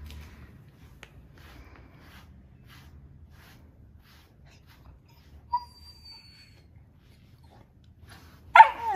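Faint scratching strokes of a deshedding brush through a Welsh Corgi's coat, then near the end a short whine from the dog, falling in pitch.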